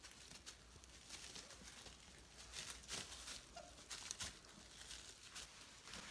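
Cane Corso puppies snoring and snuffling faintly in their sleep: an irregular run of soft, breathy puffs, with a brief faint squeak about three and a half seconds in.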